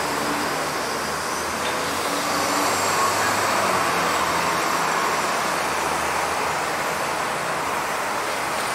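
Steady street traffic noise, with a semi-trailer truck running close by.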